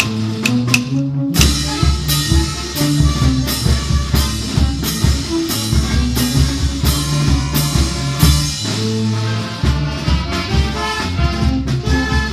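Marinera norteña music with a steady drum beat and bass; the full band comes in about a second and a half in.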